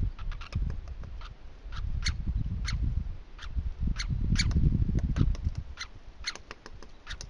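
A small animal repeating short, sharp chip-like calls, about two a second, over a low rumble that swells near the middle.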